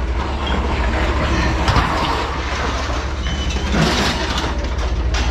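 Engine running steadily at a low hum, with a few knocks and clanks of scrap being handled.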